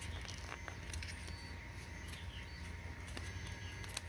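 A few scattered light clicks and taps of balsa wood parts being handled and pressed into place in a model airplane fuselage frame, over a steady low hum.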